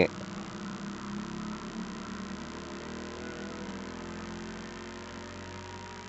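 A steady low hum made of several held tones, easing slightly near the end.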